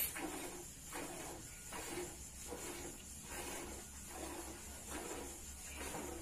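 Hand-milking a cow: streams of milk squirting into a bucket in a steady rhythm, about two squirts a second.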